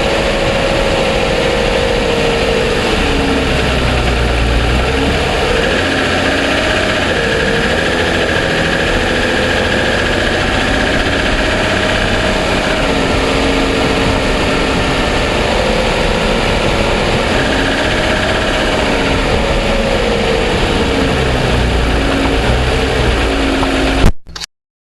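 2007 Toyota Sienna's 3.5-litre V6 idling steadily, heard close up from the engine bay, with the ticking noise that the dealer takes for piston slap. Near the end comes a sharp knock, and the sound cuts off suddenly.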